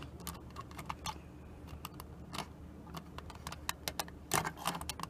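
Light, irregular clicks and taps of small alarm-clock parts and gears being handled and pried at during disassembly, growing busier in the last second or two.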